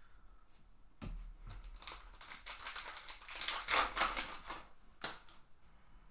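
Baseball cards being handled by hand: a run of crisp rustling and clicking that begins about a second in, is loudest in the middle, and ends with a sharp click about five seconds in.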